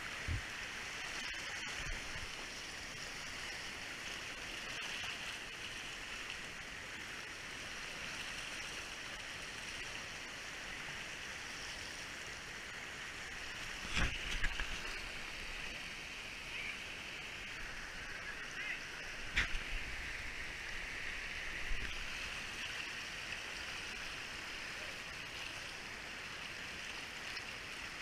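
Steady rushing of water over the rocks of a shallow creek's rapids, heard close up. Two short knocks stand out, about halfway through and again a few seconds later, as the camera is handled.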